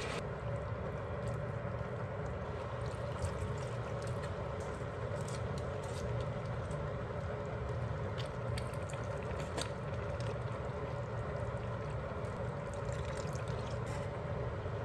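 Beef, onion and tomato stew simmering and crackling in a deep pan, with scattered small ticks over a steady low hum.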